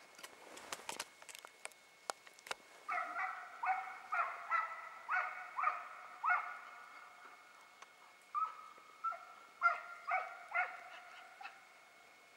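Hunting hound baying on the trail of deer: about a dozen short, pitched calls, roughly two a second with a brief pause midway. A few faint clicks come before it.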